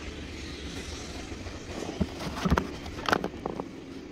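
Knocks and clatter of a camera being handled and set down, in a cluster between about two and three and a half seconds in, over a steady low rumble.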